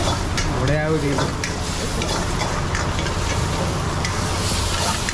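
Food sizzling and frying in a wok as a metal ladle stirs and scrapes it, with sharp clinks of metal on metal scattered through the steady sizzle.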